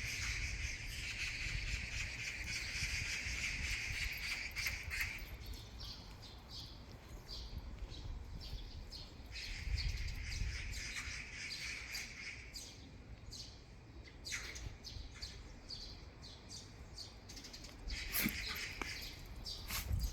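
Birds chirping, with a steady high hiss that comes and goes three times: for about five seconds at the start, again around ten seconds in, and briefly near the end.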